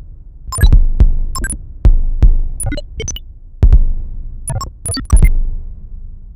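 Live electronic music on synthesizers: sparse, irregular deep thumps, each with sharp glitchy clicks on top, coming in clusters about once a second, each dying away into a low rumble.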